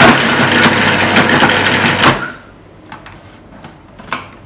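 Magimix food processor running, roughly chopping ginger, galangal, shallots, garlic and lemongrass; the motor stops about two seconds in. A few light clicks follow as the processor's lid is turned to open it.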